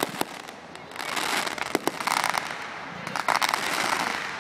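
Aerial fireworks going off: a few sharp separate bangs, then two stretches of about a second each of rapid crackling pops, one beginning about a second in and the other about three seconds in.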